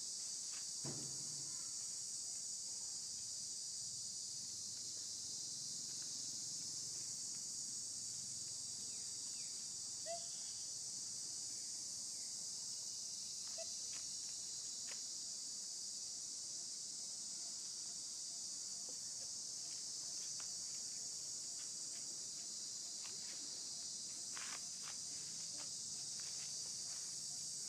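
Steady high-pitched buzz of an insect chorus, with a few faint ticks and taps.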